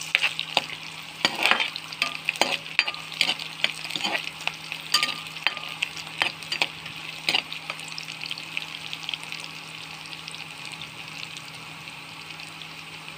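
Onion, garlic and chilli tempering (tadka) sizzling in hot oil in a pan while a spatula stirs it, knocking and scraping against the pan. The knocks come often at first and thin out after about eight seconds, leaving the steady sizzle.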